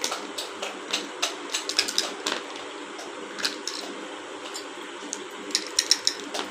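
Plastic Ludo tokens tapping and clicking against the game board as they are moved, in irregular sharp clicks with quick clusters of several clicks around two seconds in and near the end.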